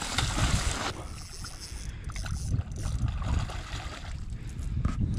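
A hooked barramundi thrashing and splashing at the water's surface for about the first second, then a low wind rumble on the microphone.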